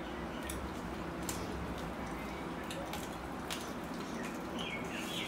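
Hand-eating from a steel plate: sparse soft clicks and wet sounds of fingers mixing rice and curry and of chewing, over a steady low hum. A bird chirps a few times near the end.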